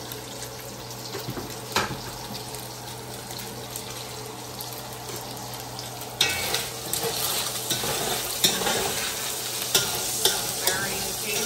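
Food sizzling in a pot on the stove, with a spoon stirring and clinking against it. The sizzle turns suddenly louder and more crackly about six seconds in.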